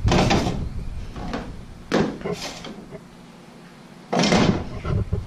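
Clear plastic box being handled on a car's hood: a few short knocks and scrapes, with a sharp click about two seconds in and a louder clatter a little after four seconds.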